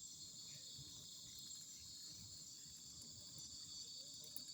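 Crickets chirping in a steady chorus: a faint, continuous high trill.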